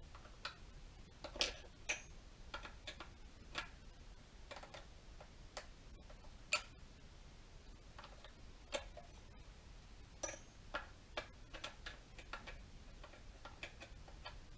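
Light, irregular metallic clicks and taps from a screwdriver working the chain tensioner of a new chainsaw and the chain being handled on its 20-inch bar, while the chain is tightened.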